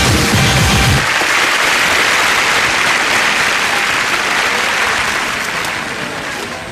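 Studio audience applauding, dying down over the last couple of seconds, with a low rumble under the first second.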